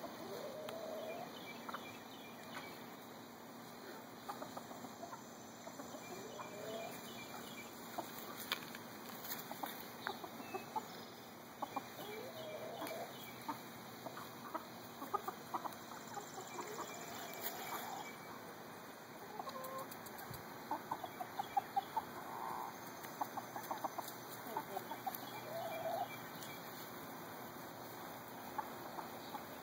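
Small flock of backyard hens, buff Orpingtons and silver-laced Wyandottes, clucking with short calls scattered throughout and quicker runs of clucks in the last third.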